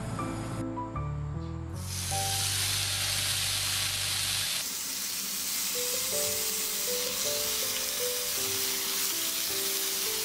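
Slices of pork belly (samgyeopsal) sizzling on a hot ridged grill plate, the sizzle starting about two seconds in and holding steady, over light background music.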